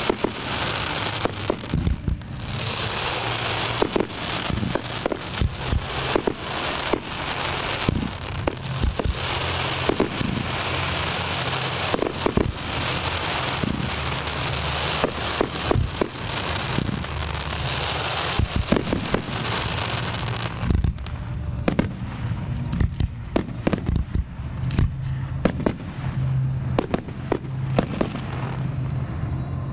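Aerial fireworks display: a dense run of shell launches and bursts over a continuous crackling hiss. After about twenty seconds the hiss drops away, leaving sparser, sharper bangs.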